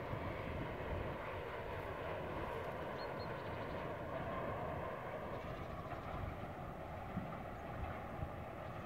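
Distant Serbia Cargo class 661 diesel-electric locomotive hauling a freight train as it approaches: a steady engine drone from far off, with a faint even tone coming in about halfway through.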